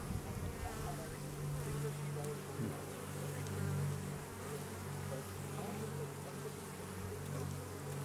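Honey bees buzzing in a steady, low hum around an opened hive.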